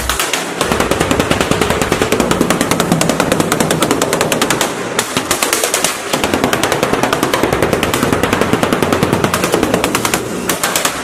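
A power tool hammering rapidly, many blows a second in an even rattle, stopping briefly about five seconds in, again near six seconds and near the end.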